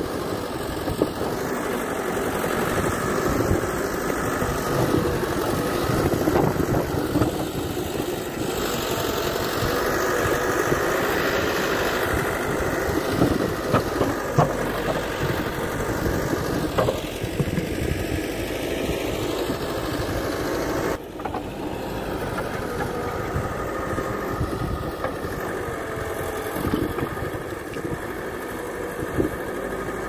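Backhoe loader's diesel engine running as the rear bucket digs into rocky ground, with scattered knocks from stones and the bucket.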